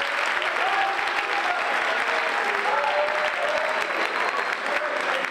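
An audience applauding steadily, dense clapping with a few voices heard through it.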